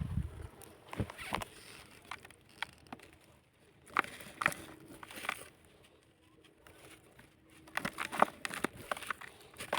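Crunchy lumps of dried sand and cement crumbling and breaking, with irregular crackles and crunches. There is a quiet stretch in the middle, and a quick run of crunches comes near the end.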